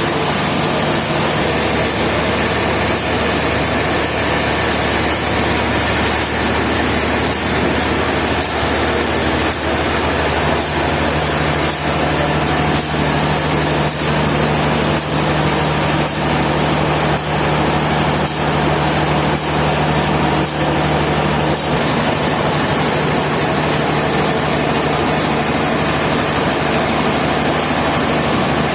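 Steady machinery drone like a running engine, with a low hum throughout and faint, evenly spaced high ticks about once a second for most of the stretch.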